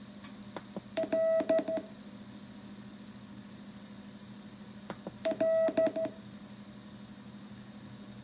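Morse code practice tone, a single pitch keyed on and off, sending one short character twice about four seconds apart, plausibly the letter L (dit-dah-dit-dit). A couple of faint clicks come just before each group, over a steady low background hum.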